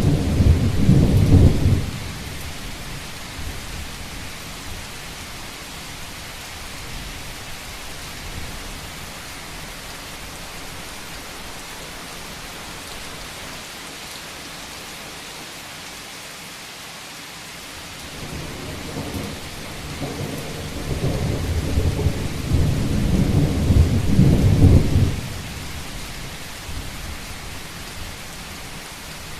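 Steady rain falling on a roof, with thunder rumbling: one roll dies away about two seconds in, and another builds from a little past the middle, grows loudest, then cuts off a few seconds before the end.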